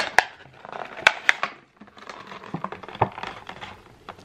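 Clear plastic clamshell fruit container crackling as it is handled and turned in the hands, with a few sharp clicks of the plastic.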